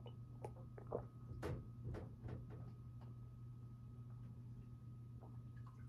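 A person gulping water from a glass jar: a quick run of faint swallows over the first couple of seconds, then a couple more near the end.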